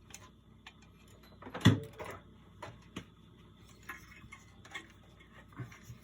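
Scattered light clicks and taps of small tools and parts being handled on a workbench, with one louder knock about two seconds in.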